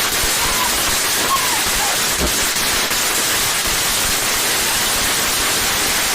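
Firework fountain spraying sparks with a steady, loud hiss.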